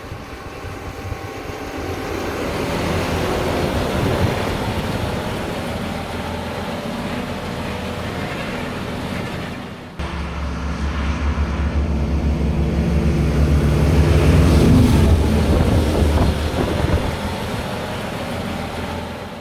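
Fendt 933 Vario tractor engine running under load, with wind noise on the microphone. After a cut about halfway through, the engine is louder and closer, swells, then fades away near the end.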